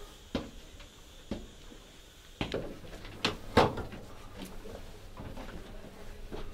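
Slow footsteps climbing stairs, about one step a second, then a quicker run of louder knocks and thuds a little over two seconds in, the loudest about halfway through.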